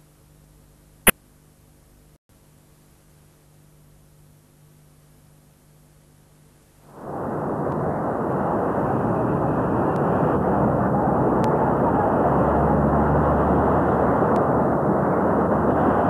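Faint hum with a single sharp click about a second in, then about seven seconds in a loud, steady rush of water sets in and holds: floodwater surging.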